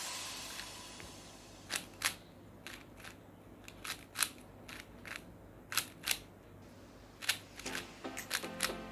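Plastic 4x4 Rubik's cube being turned layer by layer: irregular sharp clicks and clacks as the wide slices snap into place during the OLL parity algorithm.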